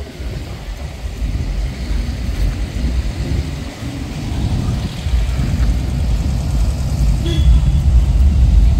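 Classic cars driving slowly past in a line, their engines running at low revs, a steady low drone that gets louder about five seconds in as cars come close.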